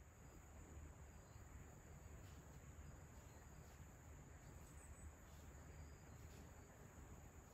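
Near silence, with a faint, steady high-pitched chorus of crickets and a low background rumble.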